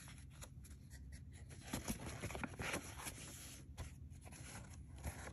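Faint rustling and scraping of paper and card as a tarot deck is slid out of its paper box, with small scattered ticks and taps. The busiest scratchy rustle comes about two seconds in.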